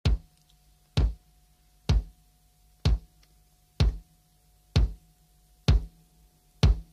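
Slow, heavy drum beat: eight single hits about a second apart, each dying away quickly, opening a rock music track.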